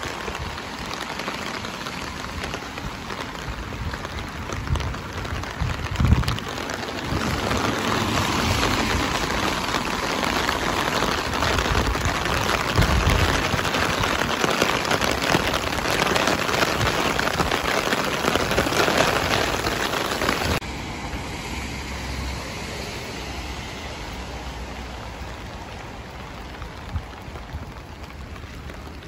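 Steady rain falling on wet pavement and road, a continuous hiss that grows heavier about a quarter of the way in and then drops suddenly to a lighter patter about two-thirds through.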